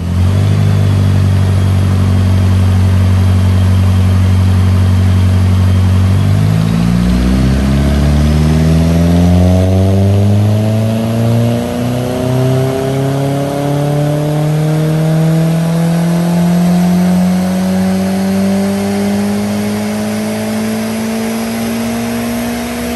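VW 1.8T 20-valve turbocharged four-cylinder engine heard at its decatted full exhaust, on a rolling-road dyno: it holds a steady speed for about six seconds, then pulls up through the revs in one long, smooth climb under load, levelling off near the end, with a faint high whine rising with it.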